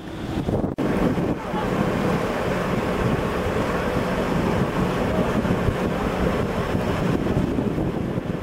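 Wind buffeting the microphone over the wash of the open sea, a steady rushing noise, with a brief break under a second in.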